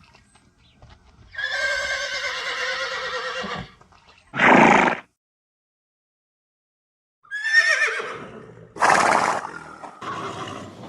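Horse whinnying: a long wavering neigh, then a short loud noisy blast. After a break of complete silence comes a second, shorter neigh falling in pitch, followed by another loud blast.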